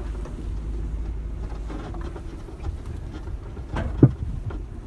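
1999 Honda CR-V driving over a rough dirt trail: a steady low engine and road rumble with small rattles and clicks from the body. About four seconds in, a single loud knock comes from the underside as the car bottoms out.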